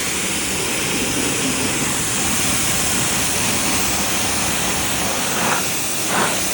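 Pressure washer spraying water onto a truck's paintwork, a steady loud hiss of spray over the machine's motor.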